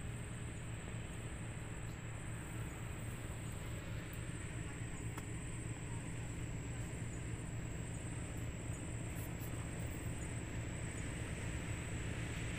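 Steady low drone of an engine running, with a thin steady high tone above it.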